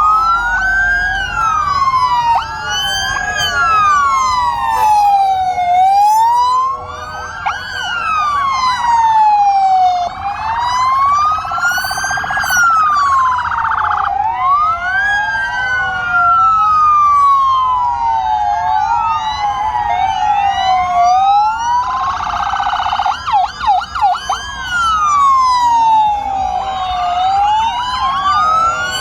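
Many police and gendarmerie vehicle sirens wailing at once, out of step with one another, each sweeping slowly up and down in pitch every few seconds. A little past two-thirds of the way through, a faster, choppy warble cuts in briefly over the wails.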